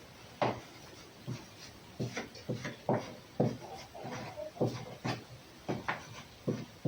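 A series of about a dozen light, irregular knocks, some coming in quick pairs.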